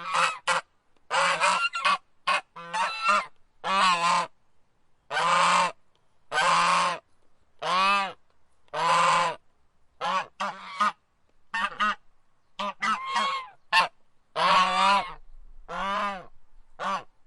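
Goose honking over and over, about once a second, with some short honks and some drawn-out ones.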